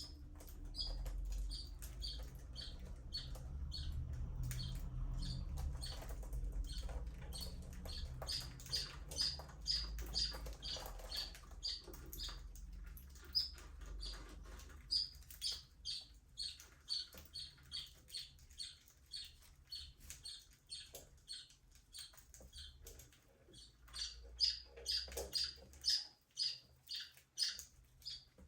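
Budgerigars chirping in an aviary: a steady run of short, high chirps, about two a second, with a low rumble underneath that fades out near the end.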